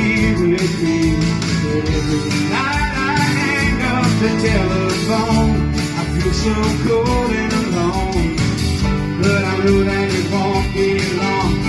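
Live country-rock band playing: electric and acoustic guitars, bass, drums and keyboard together, with a melody line bending up and down over them.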